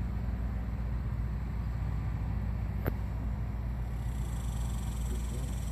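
A steady low machine hum, with one short click about three seconds in.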